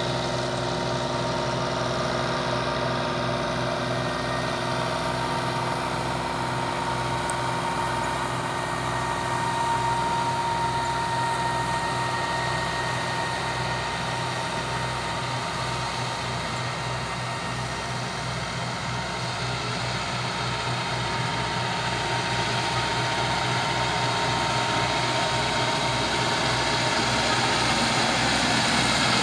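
Landini Powerfarm 90 tractor engine running steadily with its Dalla Fiora mower-conditioner working, growing louder over the last several seconds as it comes closer.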